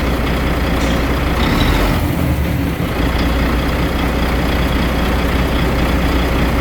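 Volvo FH12 truck's straight-six diesel engine idling, given a brief blip of the throttle about a second and a half in that settles back to idle by about three seconds.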